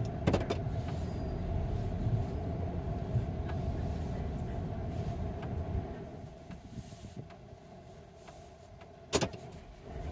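Vehicle running and moving slowly, heard from inside the cab: a steady engine and road rumble that fades about six seconds in as it slows almost to a stop. A sharp click comes near the end.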